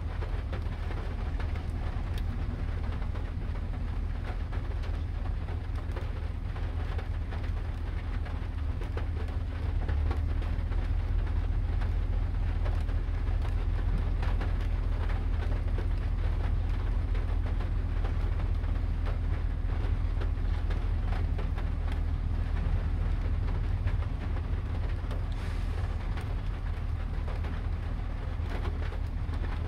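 Steady rain falling, with a constant low rumble beneath it that grows slightly louder about a third of the way through.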